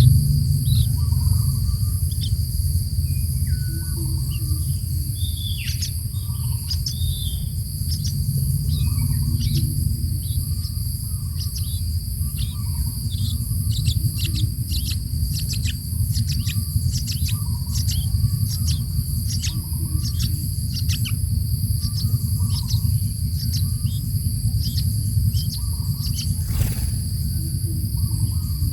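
Young yellow-vented bulbul chirping over and over in short, high notes that fall in pitch, about one or two a second, over a steady high insect drone and a low rumble.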